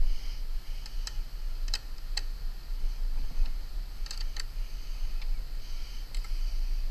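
Light metallic clicks and taps, a few in quick pairs, as a metal spirit level and hands shift against a chimney pipe and its galvanized steel roof support while it is set level, over a low steady rumble.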